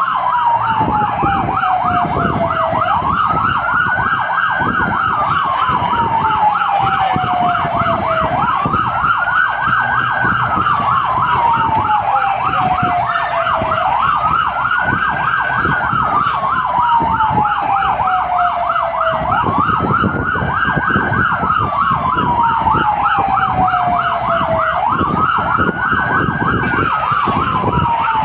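Responding fire engine sirens heard from inside the cab: a slow wail that rises quickly and falls slowly about every five and a half seconds, over a fast yelp, with the truck's engine rumbling beneath.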